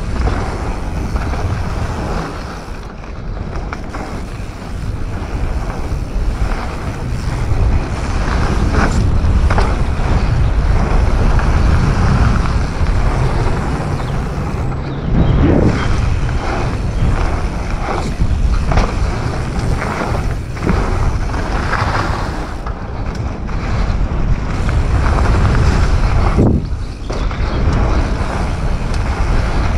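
Wind rushing over the action camera's microphone as a Commencal Supreme DH29 downhill mountain bike runs down a dirt trail, with tyre noise and frequent knocks and rattles of the bike over bumps.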